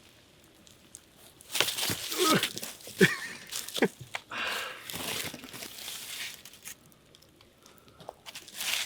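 Crinkling and crunching handling noises, loudest in a cluster of sharp cracks between about one and a half and four seconds in, with softer rustling after.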